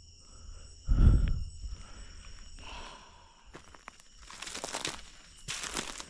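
Footsteps and rustling through dry leaves and undergrowth, in a few short bursts in the second half, after a low thump about a second in.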